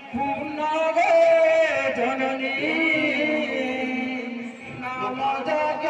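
Group singing a Sambalpuri devotional kirtan chant, the phrases held on long, wavering notes, with a brief lull about four and a half seconds in.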